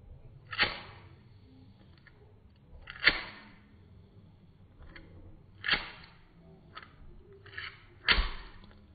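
Disposable flint lighter being flicked: the spark wheel is struck four times, about two and a half seconds apart, each a sharp click that trails off briefly, with softer clicks between. The last strike, near the end, catches and lights the flame.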